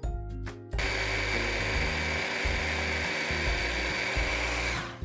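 Bosch hand blender's motor running on its chopper attachment, a steady high whine as the blades chop vegetables; it starts about a second in and stops just before the end.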